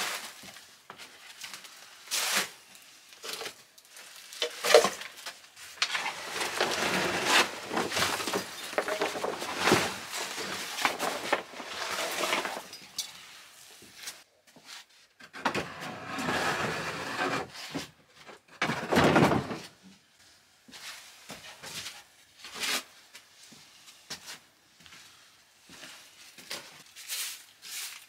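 Handling noises in a small room: a woven plastic sack rustling and crinkling, with scattered knocks and clinks as things are moved about. The longest stretches of rustling fall in the middle and around two thirds of the way in.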